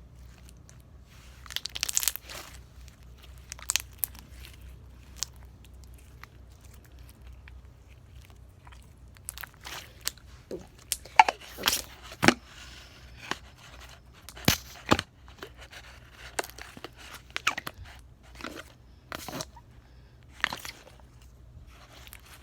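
Slime being squished and stretched by hand, giving irregular crackles, pops and tearing sounds.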